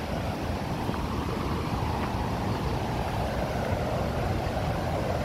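Steady rushing of a waterfall's whitewater rapids, an even noise with a deep rumble underneath.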